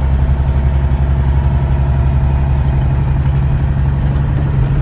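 Truck engine and road noise heard from inside the cab while driving, a loud, steady low drone.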